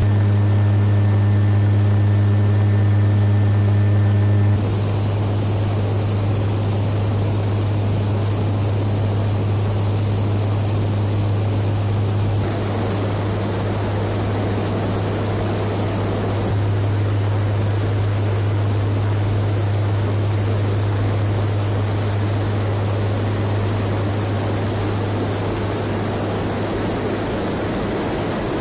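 Steady drone of a KC-130J Hercules's turboprop engines and propellers in flight, a strong low hum with a rushing haze over it. The tone and balance shift abruptly a few times.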